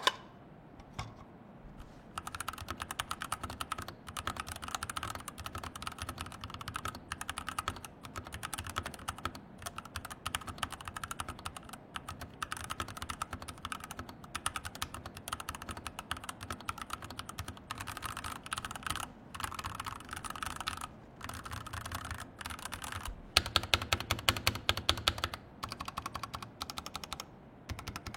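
Typing on a Pressplay Rover 84v2 tray-mount mechanical keyboard with foam dampening under the PCB and OEM-profile double-shot keycaps: a fast, steady clatter of keystrokes starting about two seconds in, with a louder stretch toward the end.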